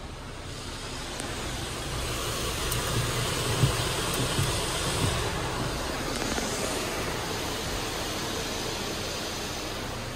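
Water spray from an N/S drive-through bus wash hitting a car's windshield and body, heard from inside the cabin: a hiss that builds over the first couple of seconds and eases off toward the end.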